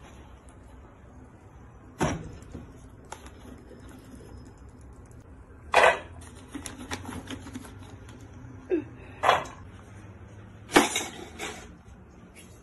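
Almonds and walnut pieces clattering in a nonstick frying pan. There are a few separate bursts of knocks and rattles, the loudest about two seconds in, near the middle as walnuts are tipped in, and near the end.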